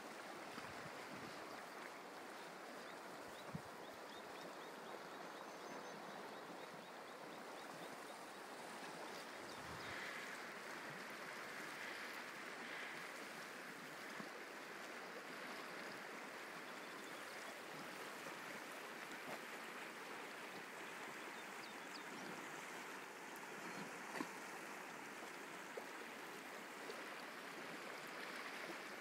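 Steady rush of the Firehole River's flowing water, with a few faint ticks.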